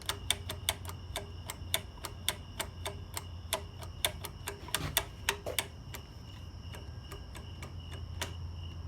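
A switch clicked over and over, about four or five clicks a second, slowing to a few scattered clicks after about six seconds; the switch is not working well. Insects trill steadily behind it.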